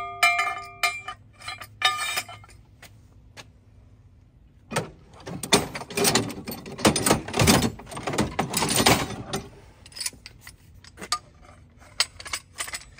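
Steel clamp fittings clinking against steel tube with a ringing metallic tone. Then a loud, drawn-out clatter of metal bars and tools being shifted in a truck's tool compartment, followed by a few light clicks as the clamp is fitted onto a bar.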